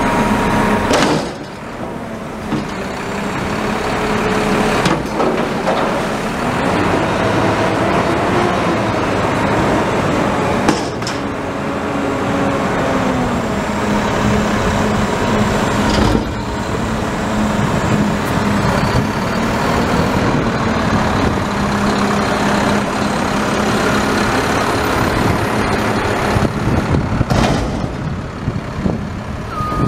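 McNeilus front-loader garbage truck on a Mack chassis, engine running steadily while its hydraulic forks lift a dumpster over the cab, empty it and lower it. Hydraulic whines rise and fall, and sharp metal bangs from the container and arms come about five times.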